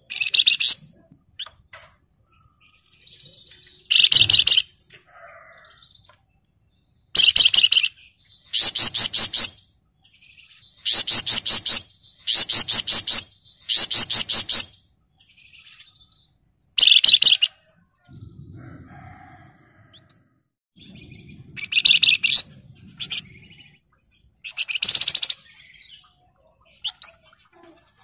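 Flamboyan (wergan Jawa) songbird singing in its rapid, dense rattling style (ngebren rapat). It gives about a dozen shrill, high-pitched chattering trills, each half a second to a second long, with short pauses between them.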